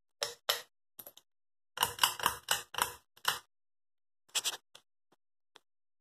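Pull chain of a Home Depot Clarkston 44-inch ceiling fan being worked to switch the fan on: a run of sharp clicks and rattles from the pull-chain switch and its beaded chain, densest about two to three and a half seconds in, with a few lighter ticks near the end.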